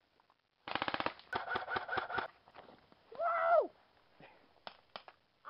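Airsoft rifle firing a rapid full-auto burst, then a slower string of shots about a second and a half long. A brief shout follows.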